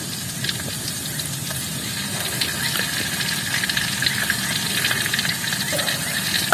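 Hot oil sizzling and crackling in a wok over a wood fire as sliced shallots and garlic fry, with ground red chili added partway through. The sizzle is steady and grows a little louder after about two seconds.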